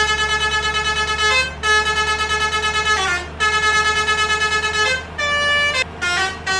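Bus 'telolet' basuri musical horn playing a melody: three long held notes, each about a second and a half, stepping and sliding between pitches, then a run of shorter notes near the end. Each note pulses quickly in loudness, over a steady low hum.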